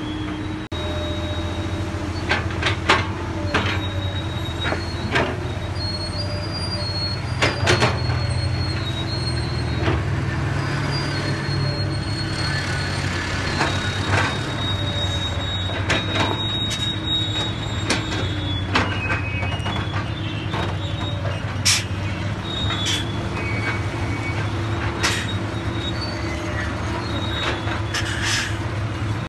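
Komatsu PC200 hydraulic excavator at work: its diesel engine runs with a steady drone, with sharp metal clanks every second or two and thin high squeals from the working machinery.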